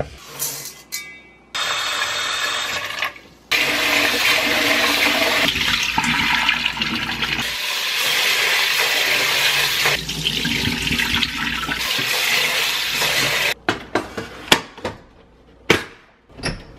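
Kitchen tap water running steadily into a rice cooker's inner pot in a stainless steel sink while rice is rinsed by hand. Near the end the water stops, and several clicks and knocks follow as the rice cooker is handled.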